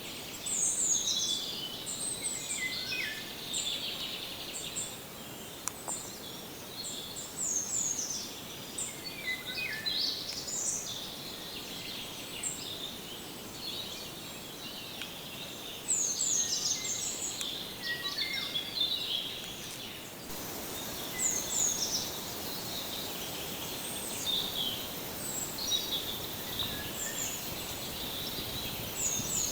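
Several songbirds singing and calling together in a forest, many short high notes, most sliding downward, overlapping over a steady background hiss.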